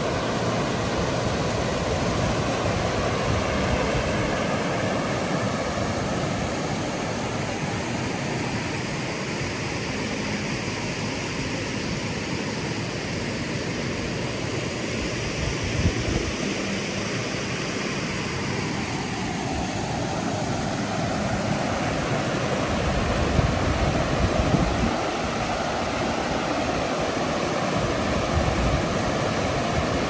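A mountain stream flowing and gurgling steadily, with the drone of an aircraft passing overhead mixed in, its sound sweeping slowly downward in pitch through the middle.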